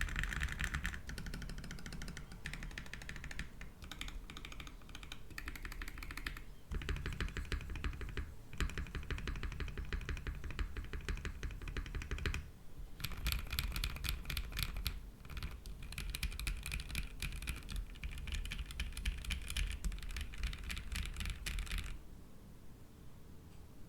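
Mechanical keyboard with Duhuk Matcha V4 linear switches, an aluminium plate, no foam and GMK keycaps, typed on quickly in long runs of keystrokes with a deep thock. There are short pauses about six and a half, twelve and a half and fifteen and a half seconds in, and the typing stops about two seconds before the end.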